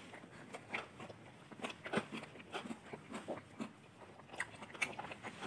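People chewing food with their mouths, making soft, irregular wet smacks and clicks.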